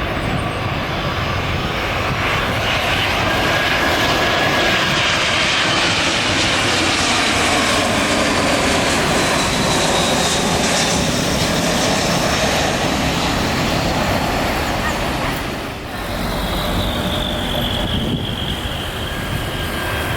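Jet airliner's turbofan engines passing low on landing approach: a loud, steady rush with whining tones that slowly glide in pitch. It dips briefly near the end, then comes back with a falling whine.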